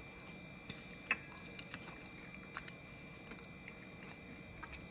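Faint chewing of a mouthful of pie pastry, with scattered small mouth clicks, one sharper about a second in.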